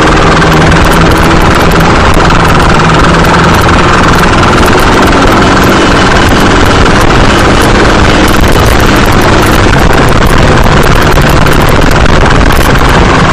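A motorcycle running at speed, its engine mixed with heavy wind rushing over the microphone. The sound is loud and steady throughout.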